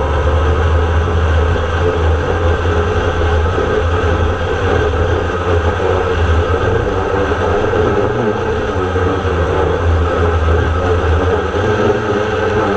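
DJI Phantom quadcopter's motors and propellers humming steadily, heard from its onboard camera, under heavy wind rumble on the microphone.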